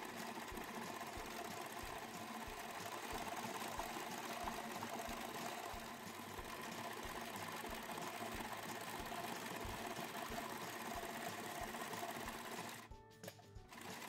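Electric sewing machine running steadily as it stitches knit sock fabric, with a regular low pulsing under its hum; it stops near the end.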